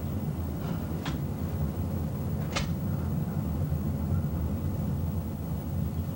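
Strong storm wind gusting near a tornado, a steady low rumble buffeting the camcorder microphone. Two sharp clicks cut through it, about one and two and a half seconds in.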